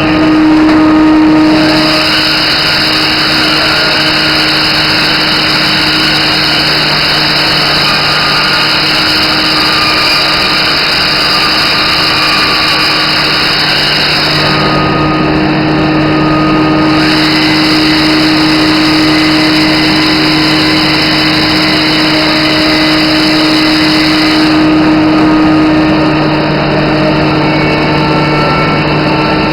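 Busellato CNC woodworking machine running loudly with a steady hum. A harsher high hiss comes in about a second and a half in, drops out around the middle, returns a couple of seconds later and stops a few seconds before the end.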